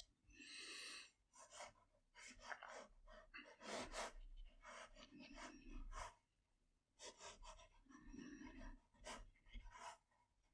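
Faint, irregular scratchy strokes of a paintbrush working paint onto watercolour paper, mixed with a few soft breaths.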